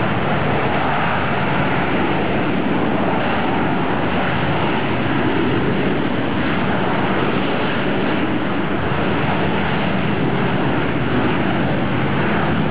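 Steady, even roar of jet engines from an Allegiant Air MD-80-series airliner with rear-mounted engines, moving along the runway.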